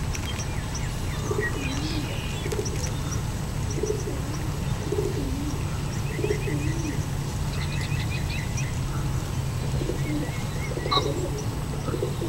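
Pigeons cooing in a repeated low call, about once a second, with songbirds chirping and trilling over them and a steady low hum underneath.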